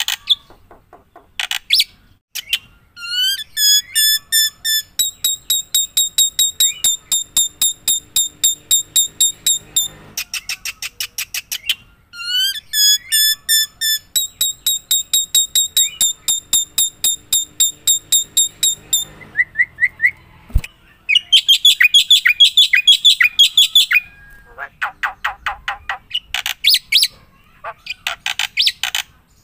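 A songbird singing: long runs of rapid, evenly repeated whistled notes, about five a second, switching to a new note type every few seconds with short pauses between runs.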